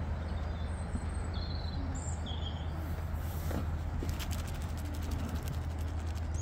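Outdoor background noise: a steady low rumble, with a few faint bird chirps about one and two seconds in.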